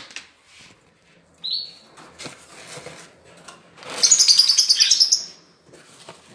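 Bird seed tipped out of a small plastic feeder, a fast dry high-pitched rattle lasting about a second, about four seconds in. Canaries chirp now and then.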